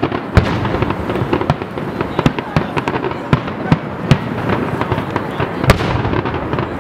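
Aerial fireworks shells bursting in quick, irregular succession: a dense string of sharp bangs over a continuous din. The loudest bangs come about half a second in and again near the end.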